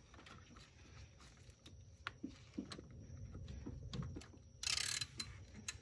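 Faint, irregular clicks and knocks of a hand tool and engine parts being handled among the hoses. About three-quarters of the way through comes a short, louder rasp lasting about half a second.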